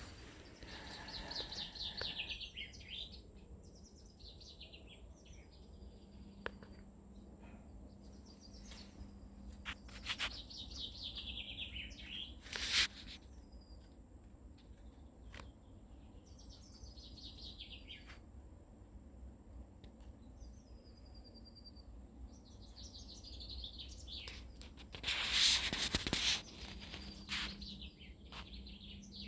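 A songbird singing, repeating a short phrase that falls in pitch every few seconds. A brief sharp noise about halfway through, and a louder rustling noise lasting about a second near the end.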